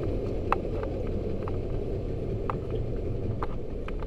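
Steady low rumble with short sharp clicks at irregular intervals.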